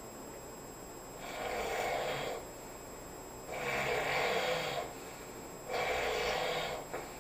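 A sleeping person snoring: three snores, each about a second long, coming roughly every two seconds.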